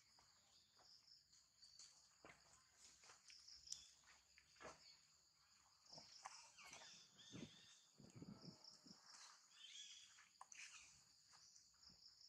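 Faint steady high-pitched insect drone, with scattered light taps and a few brief high calls about halfway through and again near the end.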